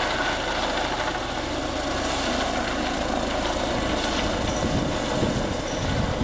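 Eurocopter EC135 air-ambulance helicopter flying low, its rotor and turbine making a steady, even noise.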